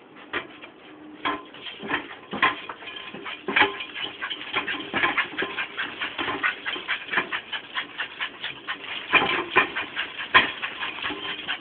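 A dog running in fast tight circles: its paws scuffing and pattering on the ground in a quick, uneven run of short scrapes and thumps, several a second, growing louder after the first couple of seconds.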